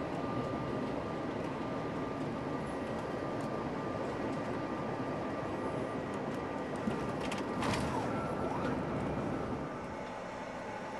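Airliner cabin noise on the landing roll: a steady rush of the jet engines and the runway rolling past. There is a brief louder noise about eight seconds in, and the noise eases down a little near the end.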